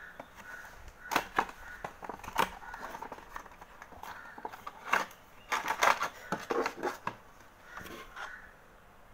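Clear plastic toy blister packaging crinkling and cracking in the hands as it is opened, a run of sharp irregular crackles that is busiest a little past the middle.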